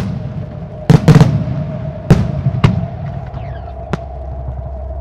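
Aerial firework shells bursting with sharp, hard bangs, about six in all, the loudest a quick double about a second in.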